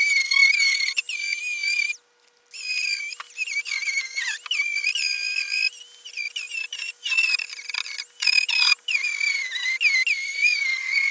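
Handheld electric grinder running at high speed against the edge of a plywood boat hull: a high whine whose pitch sags and wavers as the disc is pressed into the surface. It stops about two seconds in and starts again half a second later.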